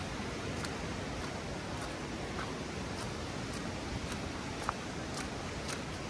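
Steady rushing of river water below the path, with faint footsteps on the wet path.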